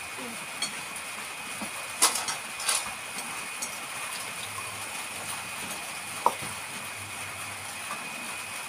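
A few short, sharp clicks and clinks of dishes at a meal, the loudest about two seconds in, over a steady high hiss.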